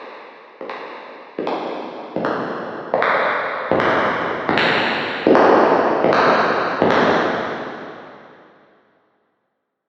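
Footsteps on a hard floor with a long echo, a steady walking pace of about four steps every three seconds, growing louder as they approach. The last step falls about 7 s in and its echo dies away within two seconds.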